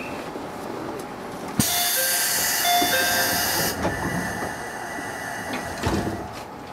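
A stopped electric commuter train sounds a two-note door chime twice over a sudden burst of compressed-air hiss lasting about two seconds, then a dull thump near the end. This is the door-closing sequence: chime and pneumatic door engines.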